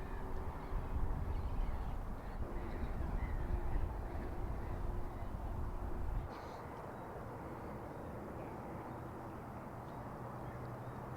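Bird calls over low rumbling outdoor noise; about six seconds in the rumble stops abruptly, leaving a steady low hum.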